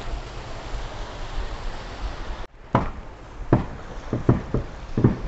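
Steady outdoor wind and handling noise on a handheld camera's microphone while walking, broken by a sudden cut about halfway, followed by several soft, irregular thumps.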